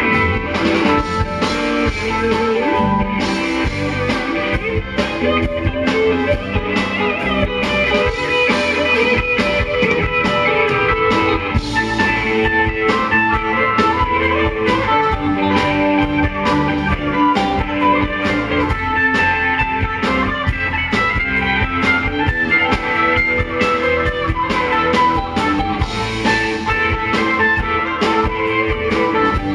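Live rock band playing an instrumental passage: electric guitars and bass over a steady drum beat, heard from among the crowd.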